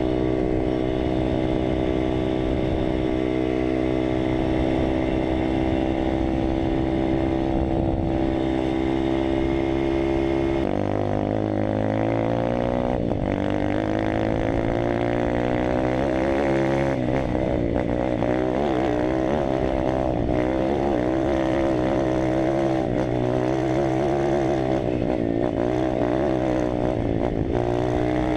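Malcor XZF 140 pit bike's single-cylinder four-stroke engine running. It holds a steady speed for about ten seconds, then rises and falls with the throttle as the bike is ridden along a dirt track.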